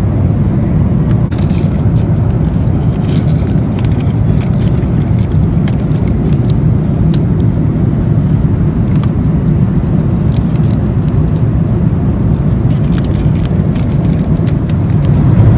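Steady low rumble of a moving vehicle heard from inside, with scattered light clicks and crackles over it.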